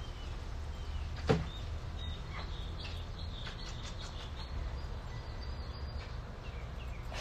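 Steady low background hum picked up by a phone microphone, with a single sharp click about a second in and a few faint high chirps.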